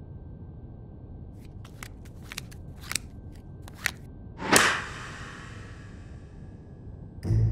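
Playing cards clicking down onto a wooden desk, several light sharp clicks, then one loud slap with a swish and a long fading tail about four and a half seconds in as the cards are thrown down. Music with low drum beats comes in at the very end.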